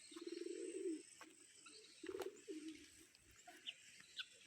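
Faint bird calls: three low, drawn-out calls in the first few seconds, then a few short, high chirps near the end.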